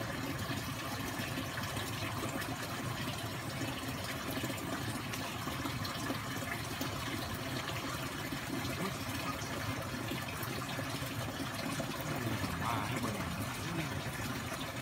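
Steady rush of running water, an even noise that holds level throughout.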